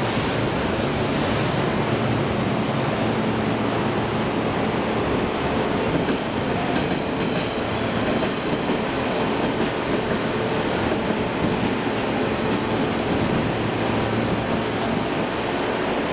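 A train running past on the rails: steady wheel and running noise throughout.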